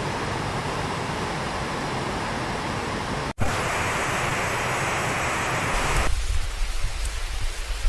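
Steady rushing noise of heavy water from flooding and rain, changing abruptly twice: a brief dropout a little past three seconds in, then a deeper, gustier rush after about six seconds.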